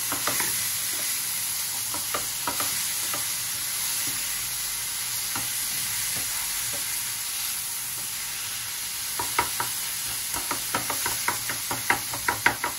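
Beef, onions and tomatoes sizzling in a frying pan as a wooden spatula stirs them, with a steady hiss. Near the end, a quick run of knocks and scrapes as the spatula strikes the pan.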